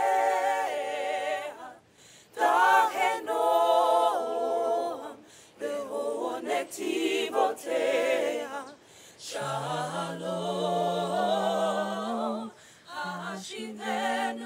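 A cappella vocal group singing in harmony, in sustained phrases with vibrato; a low bass part joins about two thirds of the way through.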